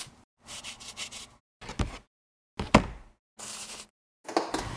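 Cardboard product box being handled on a tabletop: short stretches of scraping and rustling, two sharp knocks about a second apart, and another knock with rustling near the end, each cut off into dead silence.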